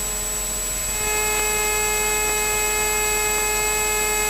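Steady electrical hum and whine on the light aircraft's intercom audio feed, several fixed tones at once. About a second in, a further tone joins and it gets slightly louder.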